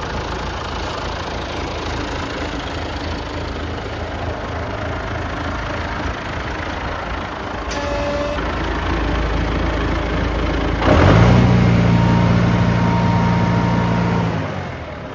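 John Deere JD 401BD tractor engine idling steadily, then about eleven seconds in it revs up quickly to a higher steady speed and comes back down just before the end.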